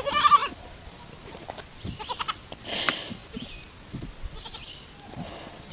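A goat bleating: one short, wavering bleat at the very start, then a harsher, noisier cry about three seconds in, with scattered clicks and knocks between.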